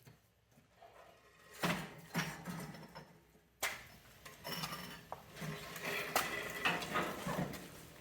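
Metal clinking, knocking and scraping, like tools and steel parts being handled, with sharp knocks about one and a half and three and a half seconds in.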